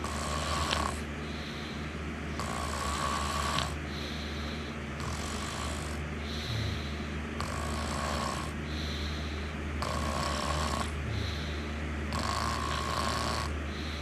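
Someone snoring in a steady rhythm, one breath about every two and a half seconds, each with a raspy stretch followed by a softer hiss. A low steady hum runs underneath.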